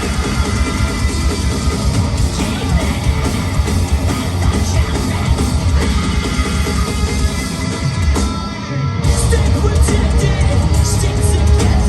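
Post-hardcore band playing live: drums, distorted guitars and bass under sung and yelled vocals. About nine seconds in, the low end drops out for a moment before the full band crashes back in louder.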